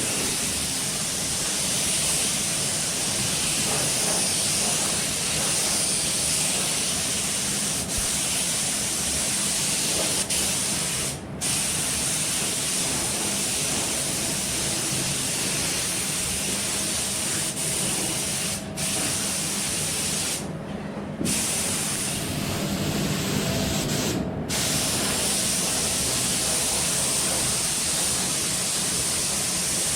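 Mini HVLP spray gun hissing steadily as it dusts a light coat of basecoat paint onto a panel, the trigger only partly pulled. The hiss breaks off briefly four times, the longest pause about two-thirds of the way through.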